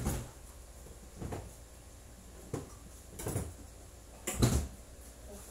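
Dull thuds of fencing footwork on the floor: steps and lunge landings, five or so spaced knocks with the loudest pair about four and a half seconds in.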